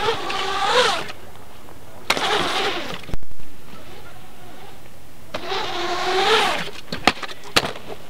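Scooter wheels rolling over concrete, a whirring tone that rises and falls in pitch as the rider speeds up and slows through the ramps, three times. Sharp clacks of the scooter hitting the concrete, the loudest about three seconds in and two more near the end.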